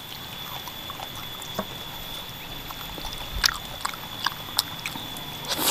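Close-up eating sounds from someone chewing and sucking on soft-boned chicken feet: irregular short wet smacks and clicks, with a sharper burst near the end.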